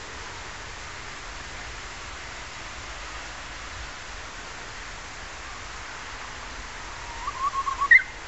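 Steady hiss, then near the end a Japanese bush warbler (uguisu) sings a short phrase: a quick run of notes ending in one sharp, higher note.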